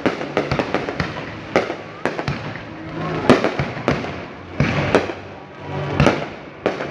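Fireworks display going off: a rapid, irregular run of bangs, with the loudest about halfway through and again near the end.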